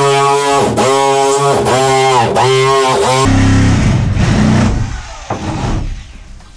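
Corded electric drill boring through a fiberglass shower wall, its motor whine dipping in pitch several times as the bit loads up. About three seconds in the whine gives way to a rougher grinding noise that fades out around five to six seconds in.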